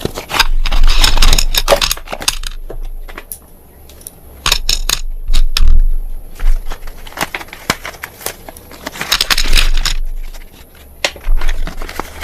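Something brittle being crushed: about four loud bursts of crunching and crackling, each a second or two long, with quieter gaps between.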